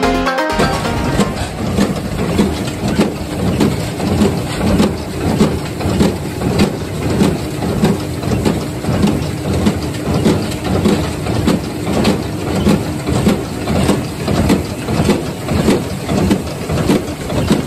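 Tractor-drawn small square baler at work, its plunger thumping about one and a half times a second over the steady hum of the tractor and baler.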